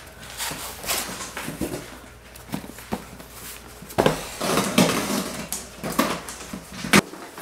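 Cardboard boxes being unpacked by hand: flaps pulled open, cardboard rustling and scraping, and boxes knocked and set down on the kitchen counter, with a sharp knock about four seconds in and another near the end.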